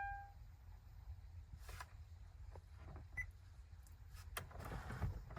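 An electronic beep cuts off just after the start, followed by faint scattered clicks and handling noises over a low rumble.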